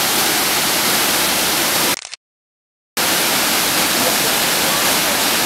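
Waterfall pouring into a rocky pool: a steady, loud rush of falling water, cut off to silence for about a second around two seconds in.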